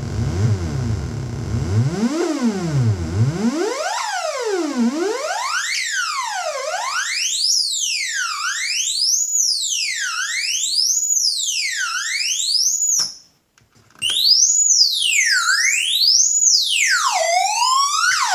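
Brunswick synthesizer's oscillator sweeping up and down in pitch in a regular siren-like warble, about one rise and fall every two seconds. It starts as a low buzzy tone and the whole sweep climbs steadily higher until it whistles near the top. It cuts out for about a second just past halfway, comes back high, and drops lower again near the end.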